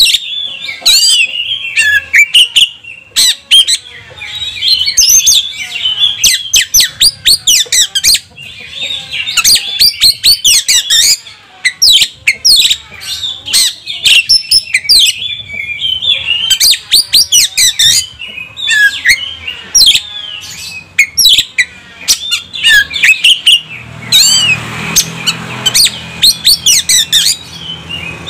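Oriental magpie-robin (kacer) singing a loud, continuous, varied song of quick whistled glides packed with sharp, rapid clicking notes. About three-quarters of the way through, a few seconds of hiss and low hum sit under the song.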